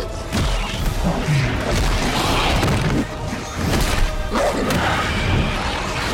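Dramatic film score under a creature fight, with repeated crashes and heavy thuds of impacts throughout.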